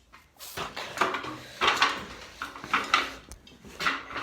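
Irregular knocks, clatters and scrapes of objects being moved and handled in a small garage, about five or six separate bursts with one sharp click near the three-second mark.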